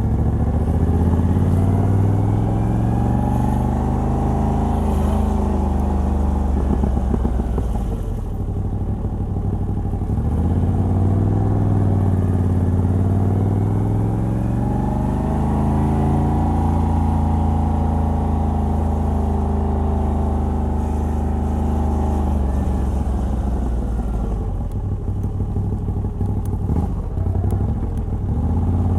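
Moto Guzzi V85TT's air-cooled transverse V-twin, breathing through its stock exhaust with a decat pipe, under way on the road. The engine note climbs as it pulls, eases off about a quarter of the way in, climbs and holds again, then drops off near the end before picking up.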